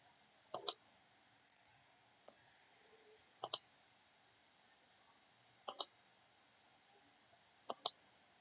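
Computer mouse button clicked in quick pairs, four double-clicks about two seconds apart.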